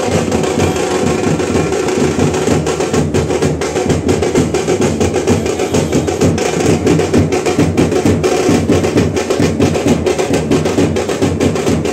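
Drums beaten in a fast, dense rhythm without pause.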